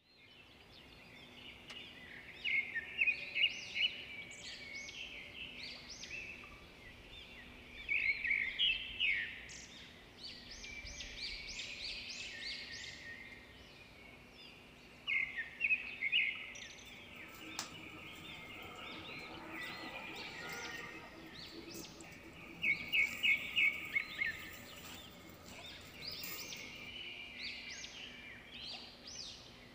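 Birds chirping: bursts of quick high notes every few seconds, over faint steady background noise.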